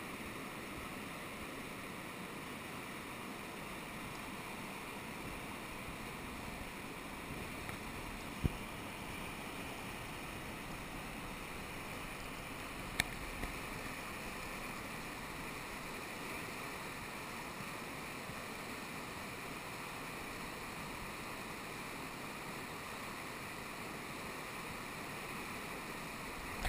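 Whitewater rapids of a mountain river, a steady rushing of water. Two brief sharp knocks, one about a third of the way in and one near the middle.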